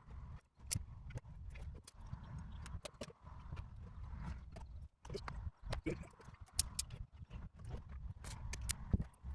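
Ferrule crimping tool and hand tools working on stereo wiring: irregular sharp clicks and clacks, some in quick pairs, over a low handling rumble as ferrule connectors are crimped onto harness wires.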